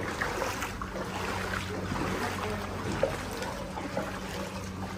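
A car driving slowly through a flooded street: a steady engine hum under the swish and slosh of floodwater around the car.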